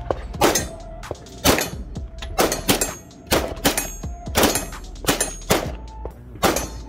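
A string of about ten pistol shots from a Glock 34, roughly one to two a second, with the short ring of steel plate targets being hit between some of them.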